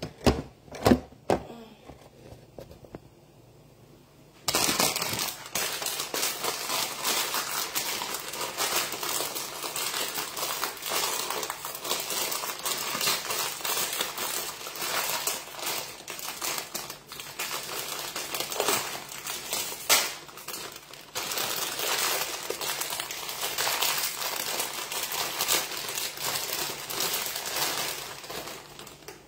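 A few sharp knocks at the start, then a plastic instant-noodle packet crinkling steadily as it is handled and opened and the dried noodle block is pulled out, starting about four and a half seconds in.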